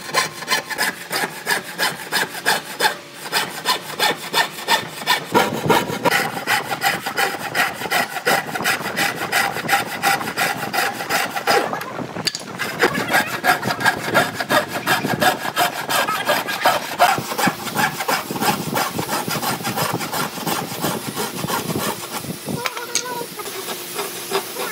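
Electric scroll saw cutting a curve through a pine board: a fast, even rattle of blade strokes over a steady motor tone, with a brief break about halfway through.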